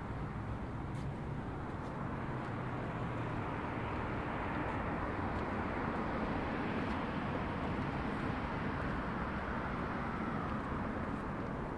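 City road traffic: a steady wash of passing cars from the street below the walls, swelling a little through the middle and easing again. Faint ticks of footsteps on stone.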